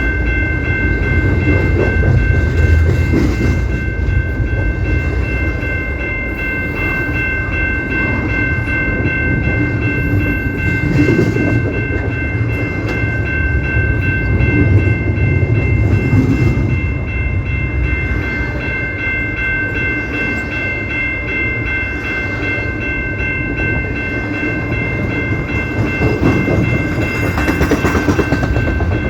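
A CP Rail train rolling past with a deep rumble of wheels on rail. A steady shrill chord of several high tones is held over it.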